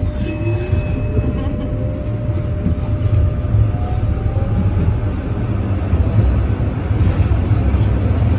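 Inside a tram riding along a city street: a steady low rumble of wheels and running gear that grows louder, with the traction motor's whine rising in pitch as it picks up speed. A brief high hiss sounds in the first second.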